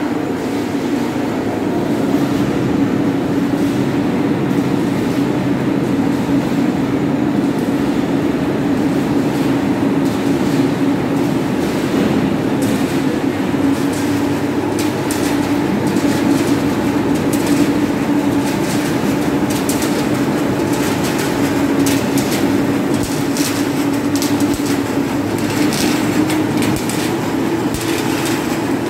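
Steel coil slitting line running: a steady machine drone with a strong low hum, and metallic clicks and clatter that come more often in the second half.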